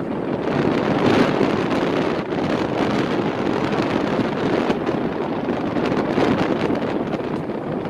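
Wind blowing across the microphone: a steady, loud rushing noise that swells and dips slightly.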